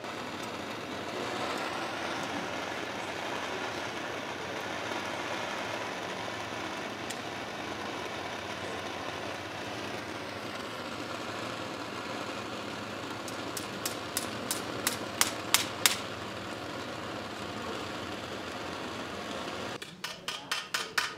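Steady rushing noise. Partway through comes a quick run of about ten sharp metallic taps, and near the end hammer blows on metal begin, about three a second.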